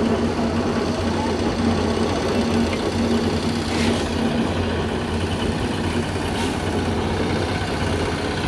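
A small engine running steadily with a low, even hum, typical of the machinery at a concrete slab pour. Two brief faint clinks come about four and six and a half seconds in.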